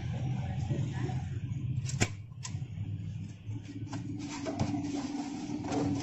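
Foam takeaway boxes being handled, with two sharp clicks about two seconds in and a few faint ticks, over a steady low hum; a steady droning tone joins about halfway through.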